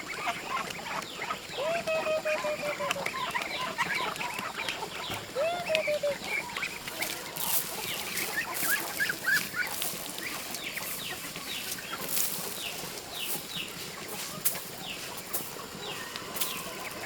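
Chickens clucking and calling, with short falling calls and many small high chirps. From about seven seconds in, a run of sharp clicks or rustles joins them.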